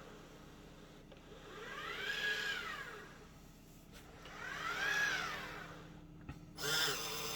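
iRobot Braava Jet M6 robot mop running across a tile floor: a steady low motor hum with two whines, about three seconds apart, that each rise and fall in pitch, then a short hiss near the end.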